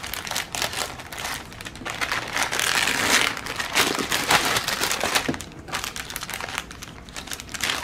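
Plastic kit packaging crinkling and rustling as it is handled, in irregular bursts of crackles that are loudest about three to four seconds in.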